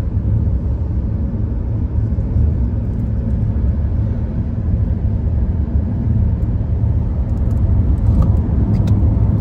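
Steady low rumble of tyre and engine noise inside a car cabin while driving on the open highway.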